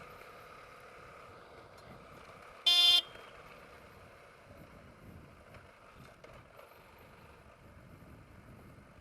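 Motorcycle horn beeps once, briefly, about three seconds in, over the faint steady running noise of the dual-sport motorcycle being ridden. The honk is a warning to let others on the trail know the bikes are there.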